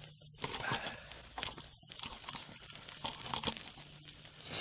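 Small wood fire under a grill grate of venison tenderloin, giving irregular crackling and sizzling.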